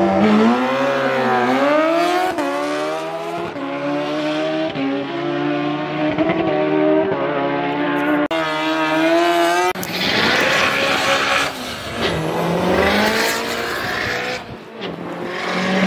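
Drag-racing engines at full throttle: a motorcycle launches and accelerates hard, its pitch climbing and dropping back at each upshift. Further runs follow, with a burst of rushing noise about ten seconds in and another engine climbing in pitch near the end.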